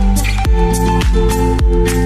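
Background electronic music with a steady beat of about two thumps a second under held synth chords and bass.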